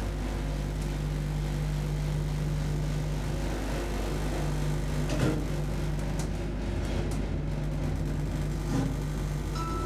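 Schindler hydraulic elevator car travelling between floors: a steady hum from its hydraulic drive, with a single knock about five seconds in.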